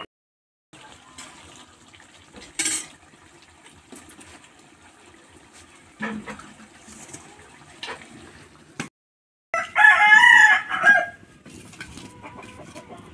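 A rooster crows once, loudly, about ten seconds in, a call lasting roughly a second and a half. Before it there are a few scattered short knocks over a faint background.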